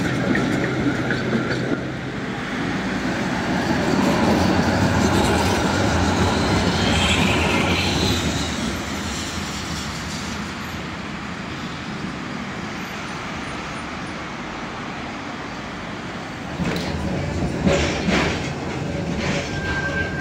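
Duewag M8S tram rolling along the track: a steady rumble of wheels on rail that swells a few seconds in, with a brief higher squeal about seven seconds in and a few sharp clacks near the end.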